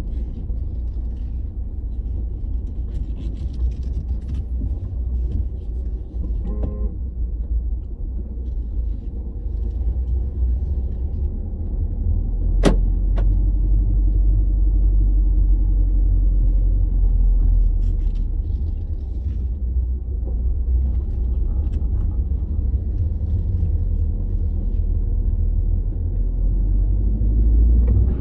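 Renault Clio RS IV steering giving a strange motor noise as the wheel returns: a low steady hum and rumble, with one sharp click about halfway through, after which the hum grows louder for a while. The owner asks whether the power steering pump has failed.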